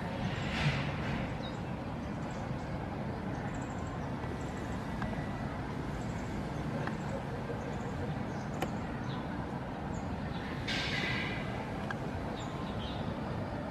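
Steady outdoor background noise with faint, short high chirps scattered through it, and two brief rustling swells, one about half a second in and one around eleven seconds in.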